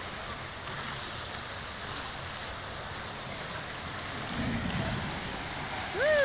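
Steady rush of water running down an outdoor water slide into its splash pool, with a brief low rumble a little after four seconds. Near the end a rider shoots out into the pool with a splash, and a voice gives one short shout that falls in pitch.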